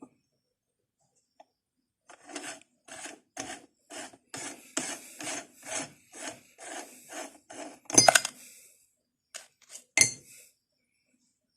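Meat grinder crushing glucose biscuits: a rasping crunch repeating about twice a second, then two loud sharp knocks a couple of seconds apart.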